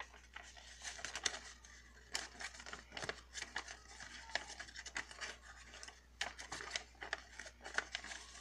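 Sheet of origami paper being folded and creased by hand: irregular rustling and crinkling, with sharper crackles as folds are pressed and a flap is tucked inside.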